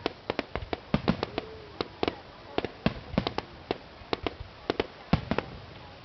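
Fireworks display going off: a rapid, irregular string of sharp bangs and pops, several a second, some louder than others, over a steady background rumble.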